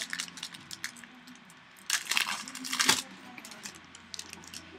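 Foil trading-card pack wrapper crinkling and cards clicking against each other as they are handled, with a dense burst of crinkling about two to three seconds in.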